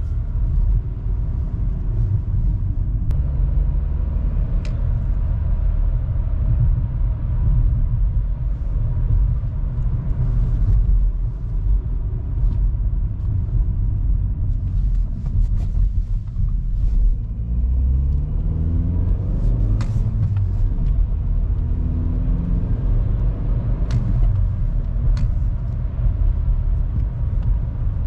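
VW Golf Mk5 driving, heard from inside the cabin: steady engine and road rumble, with the engine note rising twice in the latter half as the car picks up speed. No rattle from the right side of the dashboard: the loose fuel lines that caused it are now held by a cable tie.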